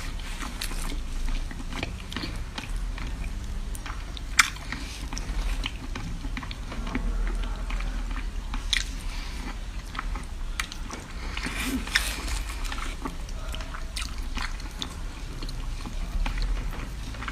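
Close-up sounds of a person eating seafood: biting and chewing with many small wet clicks and crackles. There is a sharp crack about four seconds in and another about twelve seconds in, over a low steady hum.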